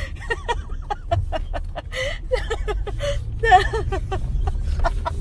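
People talking and chuckling too indistinctly to make out words, over a steady low rumble.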